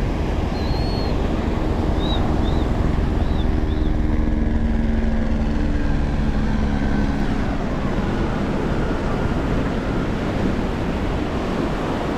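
Surf washing on the beach, with wind buffeting the microphone. A low steady hum runs from about a second in until about eight seconds, and four short high chirps come two to four seconds in.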